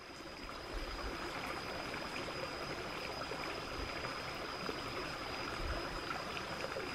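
Water of a small rocky stream running steadily over stones, with a constant faint high-pitched whine over it.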